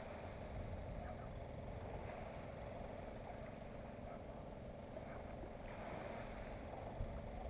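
Low, steady, fluttering rumble of wind on the microphone.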